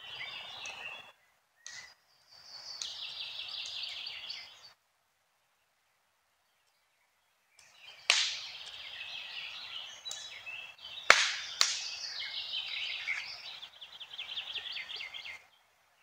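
Wild birds singing, with high trilling phrases in several short stretches broken by silent gaps. Sharp clicks come about halfway through and again about three seconds later.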